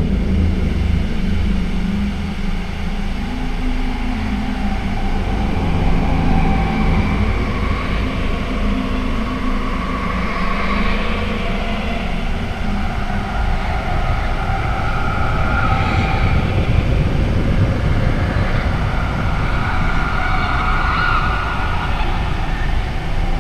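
Steady low rumble, with low droning tones in the first few seconds and faint wavering higher tones drifting over it later.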